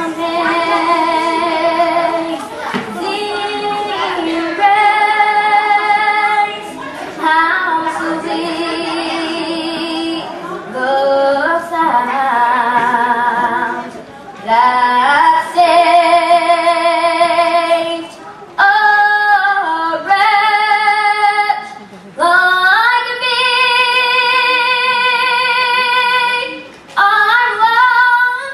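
A girl singing solo without accompaniment, a powerful soul-style voice holding long notes with vibrato, in phrases broken by short pauses for breath.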